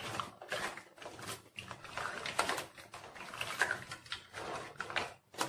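Spatula stirring crab pieces through thick simmering curry in a wok: a string of irregular scrapes, knocks of shell on the pan and wet sloshing.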